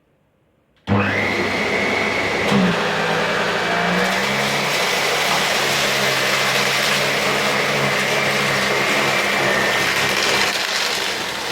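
Kärcher CV36/2 upright vacuum cleaner switched on about a second in, then running steadily with a high motor whine while vacuuming a debris test mess off carpet.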